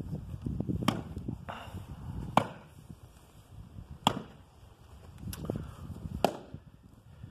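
Old Stihl 041AV two-stroke chainsaw being pull-started cold: low scraping rumbles of the starter with five sharp cracks spaced a second or so apart. The engine does not catch and run.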